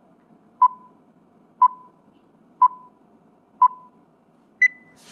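Film-leader countdown sound effect: a short beep once a second, four at the same pitch, then a fifth, higher-pitched beep near the end, over a faint hiss.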